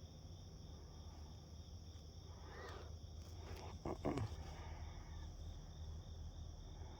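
Crickets chirring steadily, with a low steady hum beneath. A short, sharp sound stands out about four seconds in.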